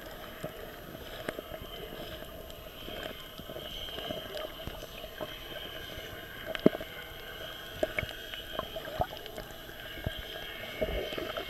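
Muffled underwater sound picked up by a submerged camera: a steady watery hiss and churn with scattered small clicks and knocks, one louder knock a bit past halfway.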